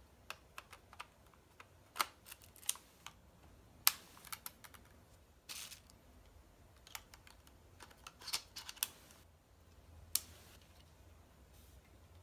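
Canon EOS M5 mirrorless camera being handled: an irregular run of sharp plastic clicks and small knocks as the body, lens and battery are fitted and worked, with a brief rustle about halfway through.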